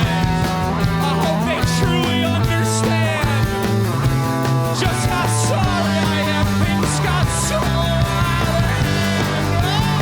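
Rock band playing live at full volume: drums with repeated cymbal crashes over guitars and a steady bass line.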